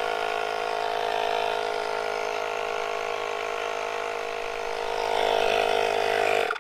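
Portable electric tire inflator running steadily as it pumps air into a flat bicycle tire, then cutting off abruptly at the very end.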